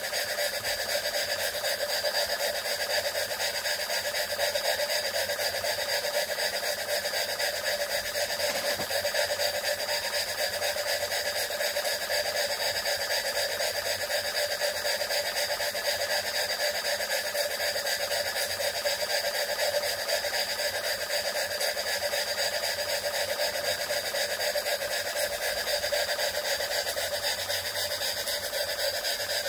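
Jensen 20G model steam engine running fast and steadily on steam from a copper boiler: an even, rapid running sound with hiss that holds unchanged throughout.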